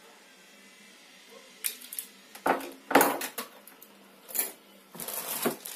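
Plastic wrapping rustling and crinkling as a bagged router is handled in its cardboard pulp tray, in a run of short bursts that starts about one and a half seconds in.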